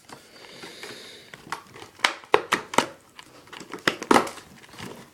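Packaging of a sealed trading-card box being torn open and handled: crinkling with a string of sharp snaps and crackles.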